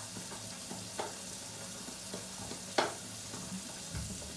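Steady hiss of a bathroom sink tap running, with a few short scratchy clicks; the loudest comes nearly three seconds in.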